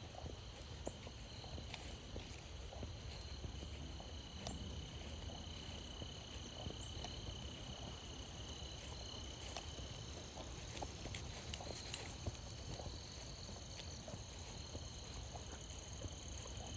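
Steady chorus of crickets, several shrill trilling tones layered over one another, with scattered small crunches and ticks from walking on the trail and a low rumble underneath.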